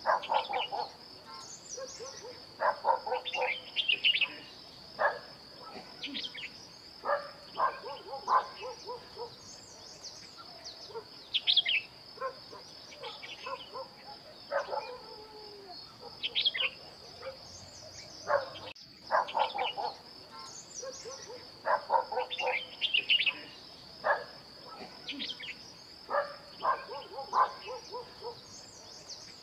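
Outdoor ambience of several birds calling in short spells of chattering notes and downward-sweeping chirps every few seconds. Behind them runs a steady, high-pitched insect trill.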